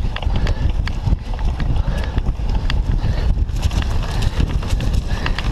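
Cyclocross bike ridden fast over bumpy grass, heard from a camera mounted on its handlebars: a steady low rumble with rapid, irregular clicks and knocks as the bike and mount rattle over the ground.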